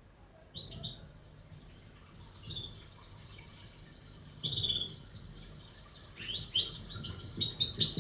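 Canary chirping over a television's sound: single high chirps every second or two, then a quick run of chirps from about six seconds in.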